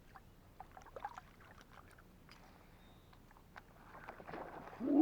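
Small water splashes and drips with scattered light knocks around a fishing kayak, building into a louder splashy rush in the last second.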